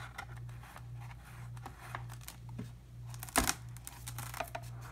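Light, irregular clicking and tapping of a cardboard board book's sliding hammer tab being worked back and forth. A louder single knock a little over three seconds in comes as the stiff board page is turned.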